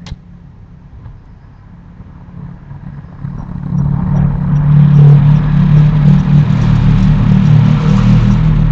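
A single sharp click, then a motorcycle engine that grows louder over a couple of seconds from about three seconds in and keeps running loud and steady, with a low hum.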